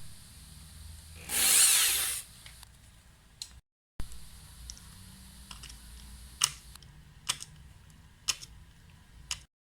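Small power drill briefly drilling into a die-cast toy car's base, about a second of high, wavering whine: the rivets being drilled out to take the chassis off. After a cut come a faint low hum and a few sharp clicks of small metal parts.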